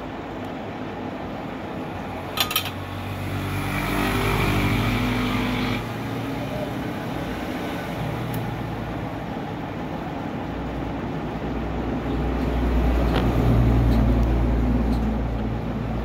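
Motor-vehicle engine noise from passing road traffic: a steady low rumble that swells twice, with an engine note shifting pitch in the first few seconds. Two sharp clicks come about two and a half seconds in.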